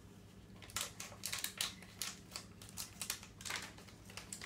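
Irregular light clicks and crinkles of hands working crafts at a countertop: scissors snipping and a small paper box being handled. They start about a second in, over a faint steady hum.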